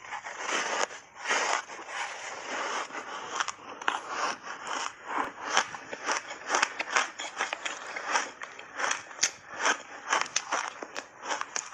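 Refrozen reshaped ice coated in matcha powder, bitten and chewed close to the mouth in a long run of crisp crunches that come faster in the second half.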